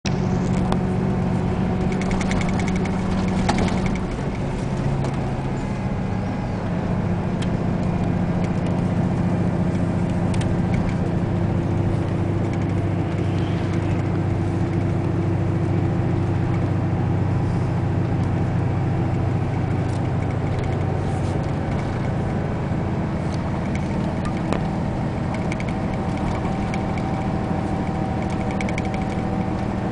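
Bus engine running steadily, heard from inside the passenger cabin as a continuous low drone.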